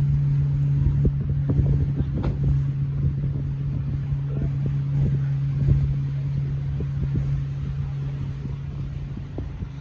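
Steady low hum and rumble of an idling vehicle, with scattered soft thumps and knocks.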